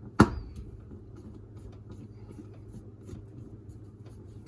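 Hands working on the plastic filter parts in the bottom of a dishwasher: a single sharp click about a quarter second in, then faint scratching and small ticks of handling over a steady low hum.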